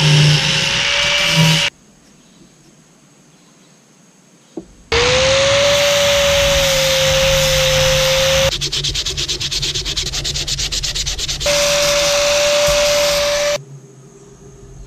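A Makita 4.5-inch angle grinder with a flap disc grinding a hardwood axe handle: a steady motor whine over the rasp of the disc on wood. It comes in several stretches, with a quiet gap of about three seconds near the start and a fast chatter in the middle, and stops near the end.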